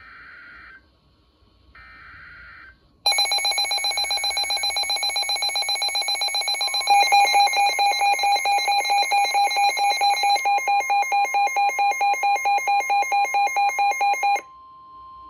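NOAA Weather Radio alert: two short buzzy SAME data bursts, then two weather alert radios sound their electronic alarms, rapid pulsing beeps starting about three seconds in and growing louder as the second radio joins. A steady warning alarm tone comes in under them, and it keeps sounding after the beeping cuts off near the end. The alarms signal a flash flood warning.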